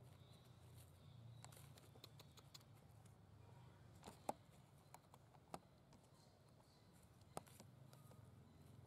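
Near silence: a faint low hum, with a few sharp ticks of dry leaves crackling, the loudest about four seconds in and two more later on.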